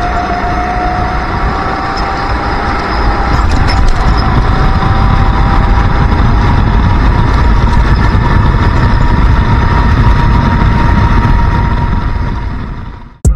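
Racing kart engine running at high revs, heard from onboard the kart. Its pitch dips slightly at first, then climbs slowly as the kart drives on, and the sound fades out near the end.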